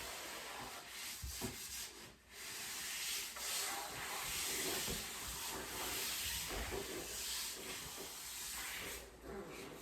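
Sanding on a wooden butcher-block countertop: a steady rasping hiss with a short break about two seconds in, stopping about nine seconds in.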